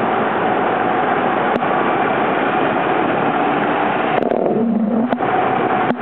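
Steady engine, wind and road noise of a vehicle travelling at speed on an expressway. The noise briefly eases about four seconds in, with a short low hum.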